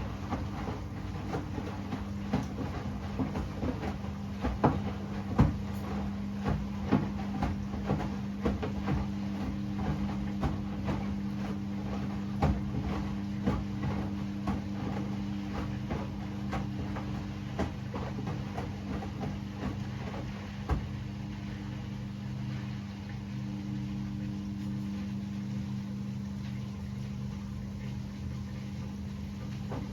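Hoover H-Wash 600 washing machine running: a steady motor hum with irregular clicks and knocks, several a second, which thin out about twenty seconds in, leaving the hum.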